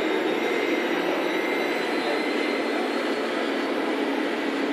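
Radio-controlled scale model trucks running: a steady mechanical hum with a thin high whine that rises slightly, echoing in the hall.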